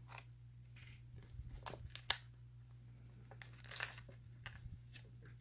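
Faint scattered scrapes and clicks of a 3D printing pen being worked over a plastic drawing template, over a steady low hum.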